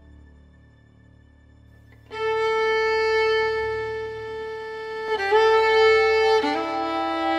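Background music of long held notes. It starts about two seconds in after a faint, quiet stretch, and the pitch moves to new notes twice near the end.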